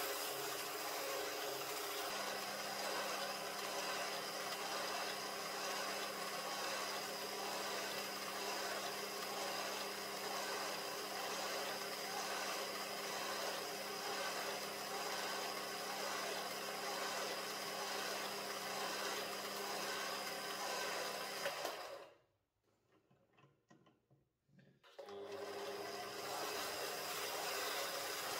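Small lathe running steadily with a steady hum as a steel shaft spins in its chuck and is hand-sanded with an abrasive pad. The sound drops out for about three seconds near the end, then resumes.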